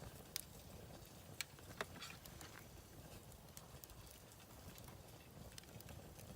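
Wood campfire crackling faintly, with a few scattered sharp pops.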